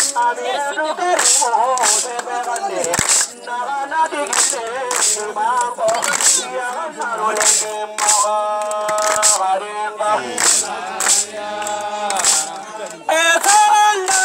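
Voices singing a traditional dance song, with sharp percussive cracks about once a second keeping the beat.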